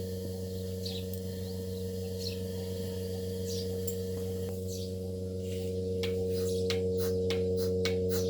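Milking machine running: a steady hum with a short high chirp repeating about once every second and a bit. Near the end it turns into a quicker ticking pulse of about three a second.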